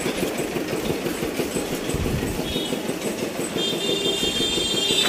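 A small engine running steadily with a fast rattle; a high, thin whine sounds over it from about three and a half seconds in.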